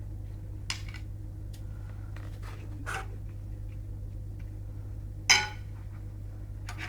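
Scattered light clinks and clatters of dishes or cutlery, the loudest about five seconds in, over a steady low hum.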